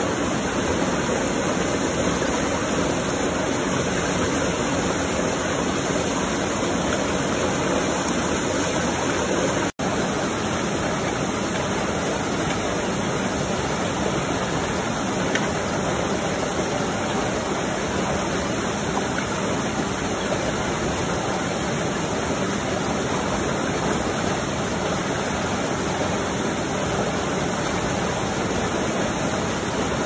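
Steady rushing of running water, like a stream, continuous apart from a brief cut to silence about ten seconds in.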